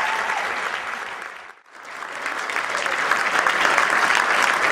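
Audience applauding, with a shout from the crowd near the start. The applause fades almost to nothing about a second and a half in, then swells back up to full strength.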